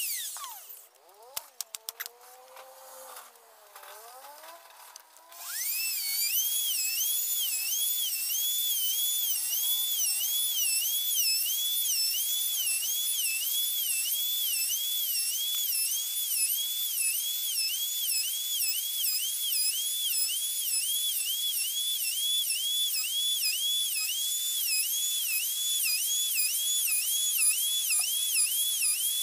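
Handheld electric plunge router: its high motor whine winds down at the start, with a few clicks, then the router starts again about five seconds in and spins up to a steady high whine. The pitch dips and recovers a little more than once a second as the bit is plunged again and again into the wooden board, cutting a row of round beads.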